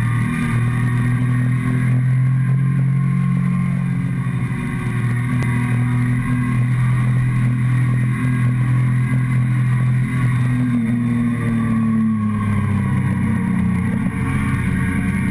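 Motorcycle engine running at steady cruising revs, heard close up through the tank from a tank-mounted camera, with wind and road noise. The engine pitch rises and then drops a little about ten to twelve seconds in.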